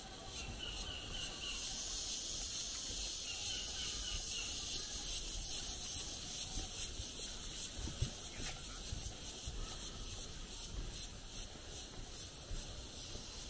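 Insects singing in a steady, high-pitched, finely pulsing chorus that grows louder about two seconds in, over a low rumble.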